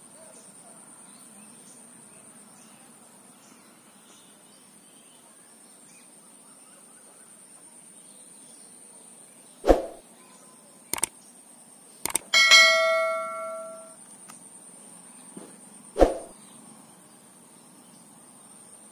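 Subscribe-button sound effects: a thump, a pair of mouse clicks, another click, then a bell ding that rings for about a second and a half, and a second thump a few seconds later.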